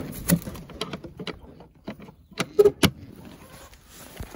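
Welded-wire mesh of a pigeon pen rattling and clinking as it is handled: a string of sharp knocks, loudest in a quick cluster about two and a half seconds in.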